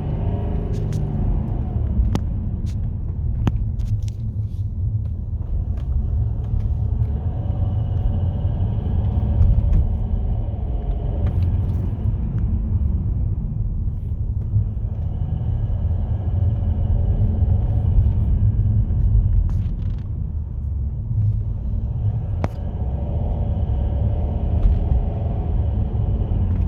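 2010 Mercedes-Benz E350 (W212) making an intermittent chirping noise over a steady low rumble from the car. The higher chirping tones come in spells of a few seconds, about every seven seconds.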